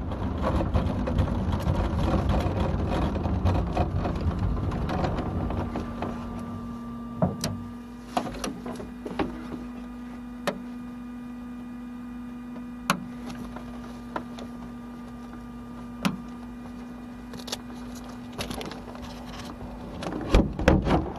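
Inside the enclosed cockpit of the KillaJoule electric streamliner motorcycle: the rumble of rolling on the salt fades as it slows to a stop, leaving a steady electric hum with scattered sharp clicks. A short louder rumble of handling comes near the end.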